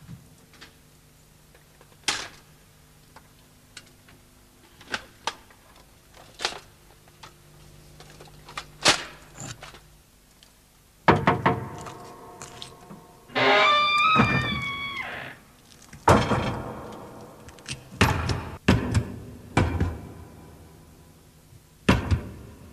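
Scattered hard knocks and thuds of wooden stage props and crates being handled and struck. They come singly at first, then crowd together about halfway through, where a wavering pitched tone sounds for about two seconds, and then continue as separate knocks.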